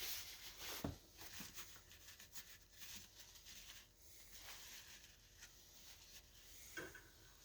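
Faint handling noises of tools and parts on a workbench: scattered light clicks, with a soft knock about a second in and another near the end.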